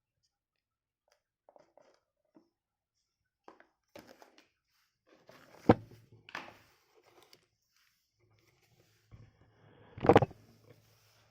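Handling sounds from unboxing a phone: scattered light taps and rustles of the box and packaging, with a sharp knock a little past halfway and a louder knock near the end.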